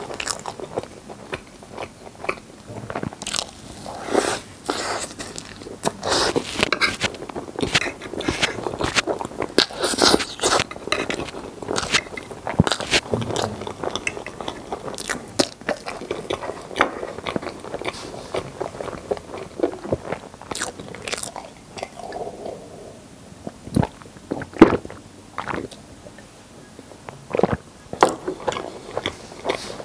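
Close-miked mouth sounds of a person chewing a mouthful of rainbow crepe cake, with many irregular sharp clicks and smacks. A metal fork also scrapes across the wooden board.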